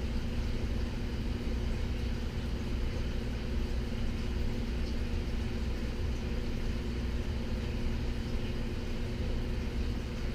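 Aquarium filter and pump equipment running, a steady low hum.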